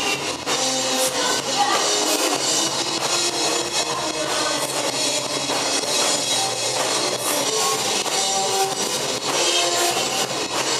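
Rock music with a drum kit playing steadily.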